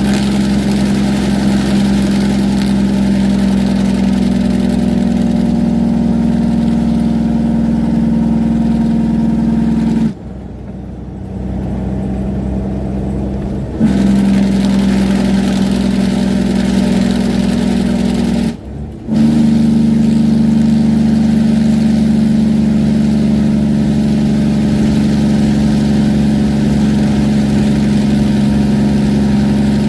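Diesel semi-truck's engine brake droning steadily on a long downhill grade. The drone drops away for a few seconds about a third of the way in and again for a moment a little past the middle, then comes back just as strong.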